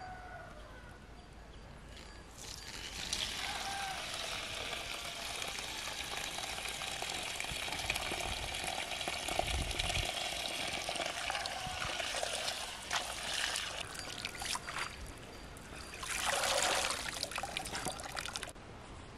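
Water running from an outdoor standpipe tap and pouring onto leafy greens in a plastic basin as they are rinsed by hand. It starts about two seconds in, grows louder for a moment shortly before the end, then cuts off suddenly.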